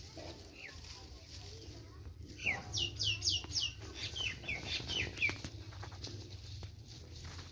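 A bird chirping in a quick run of about a dozen sharp, high chirps, each falling in pitch, starting a couple of seconds in and lasting about three seconds.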